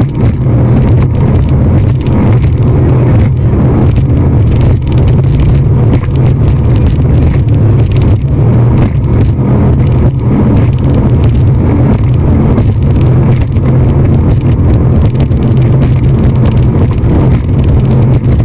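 Speedboat running at speed: a loud, steady, low rumble of engine and rushing wind, with wind buffeting the microphone.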